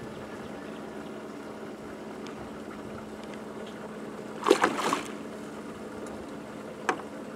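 A hooked snook splashing at the surface beside the boat as it is grabbed by hand, with a short loud burst of splashing about four and a half seconds in. A single sharp knock follows near the end, over a steady low hum.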